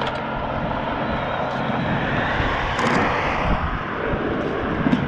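Traffic passing on the road across the bridge: a steady rushing noise that swells about halfway through as a vehicle goes by.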